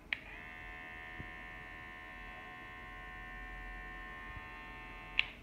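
Daling cordless hair clipper switched on with a click, its motor and blade running with a steady hum for about five seconds, then switched off with a second click.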